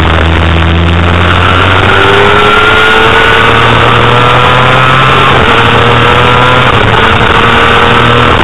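Honda CBR250RR's 250 cc inline-four engine running at high revs under way, its pitch climbing steadily with a step about five seconds in, as in a gear change, over heavy wind rush on the onboard microphone.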